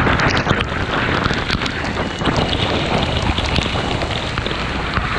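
Wind noise on the microphone over a motorcycle riding along a wet dirt road in the rain, with many scattered sharp ticks through it.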